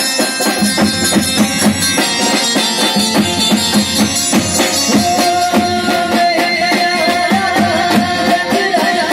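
Live Indian folk band music: a fast, steady drum rhythm with dhol and drum kit under an instrumental melody, and a held, slightly wavering melody line joins about five seconds in.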